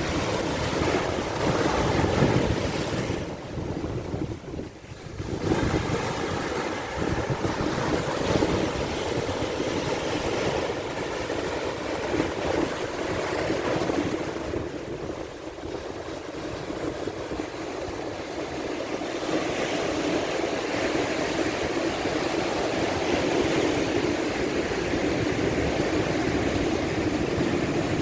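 Ocean surf breaking and washing onto a sandy beach at high tide, a continuous rush of waves that eases briefly about four and again about fifteen seconds in before building back up.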